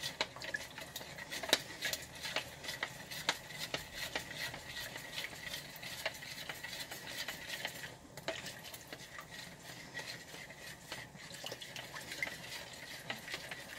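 A utensil stirring a cornstarch-and-water slurry in a measuring cup, with quick, irregular clicking and scraping against the cup as the mix is worked smooth.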